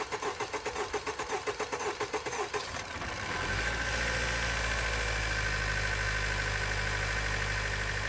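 2018 Honda Accord four-cylinder engine cranking on the starter for about three seconds, the long crank needed to build fuel pressure after new fuel injectors were fitted. It then fires up and settles into a steady, smooth idle.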